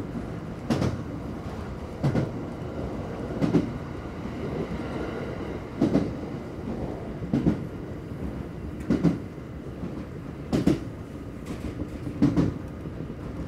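JR West 227 series 500 electric multiple unit running along the line, a steady rumble broken by a clack as the wheels pass over rail joints about every one and a half seconds.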